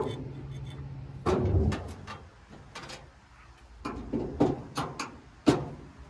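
Metal licence-plate bracket being handled against the underside of a pickup's bed: scattered knocks, clicks and rubbing, with the loudest sharp knock near the end.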